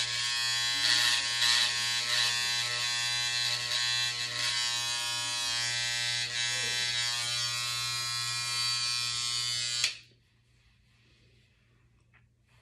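Electric hair trimmer buzzing steadily as it is worked along the hairline at the temple, switched off suddenly about ten seconds in.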